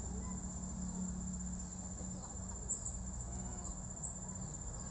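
Insects trilling outdoors in one steady, unbroken high-pitched note, over a low steady rumble.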